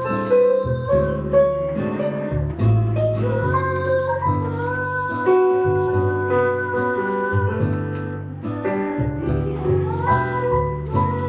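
A woman singing with live piano accompaniment: long held, gliding vocal notes over piano chords and low bass notes.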